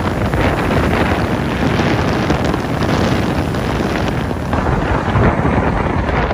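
Hurricane winds blowing hard in gusts through trees, buffeting the microphone with a heavy low rumble.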